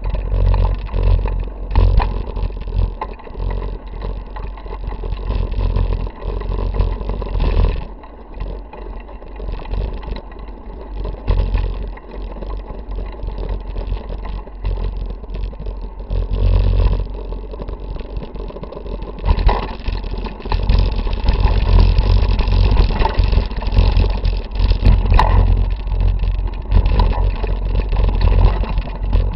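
Handlebar-mounted camera riding a mountain bike over a rocky dirt trail: deep wind buffeting and rumble on the microphone, with frequent knocks and rattles as the bike jolts over rocks. It grows louder and busier about two-thirds of the way through.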